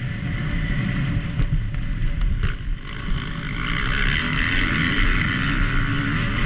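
Motocross bike's four-stroke single-cylinder engine (KTM SX-F 250) racing under throttle. It eases off briefly about two and a half seconds in, then pulls hard again at high revs.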